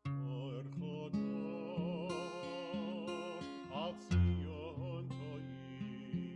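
Cantor singing a liturgical melody with vibrato, accompanied by strummed acoustic guitar; a strong low guitar note sounds about four seconds in.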